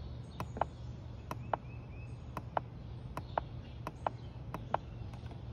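Push buttons on a PV solar charge controller clicking: about a dozen short sharp clicks at irregular spacing, over a steady low hum.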